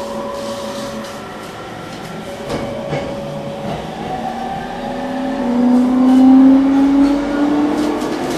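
Inside the car of an E231-series electric train, the traction motors whine as the train pulls out and gathers speed over a steady rumble of running noise. The whine rises in pitch and grows louder from about five seconds in. Two brief knocks come near the middle.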